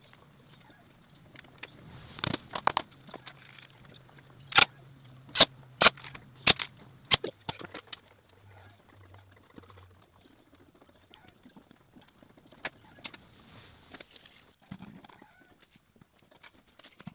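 Workshop handling noise: a run of sharp knocks and clicks, about seven of them between two and seven seconds in, over a faint low hum, then quieter scattered taps and rustling.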